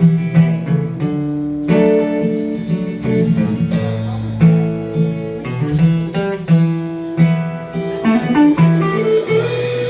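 Blues band playing the guitar-led instrumental opening of a song, with no singing.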